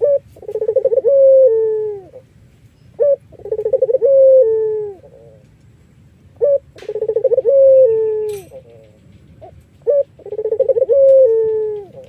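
A puter Irak, a variety of domestic Barbary dove, cooing four times, about every three and a half seconds. Each call is a short note, a fast stuttering run of notes, then a long falling coo.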